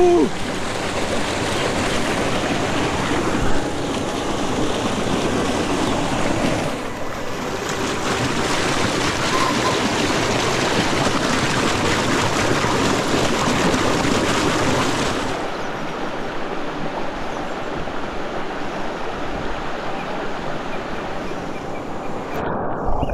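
Mountain stream rushing and splashing over boulders and a small cascade, a steady water noise that shifts in tone twice, at about seven and fifteen seconds.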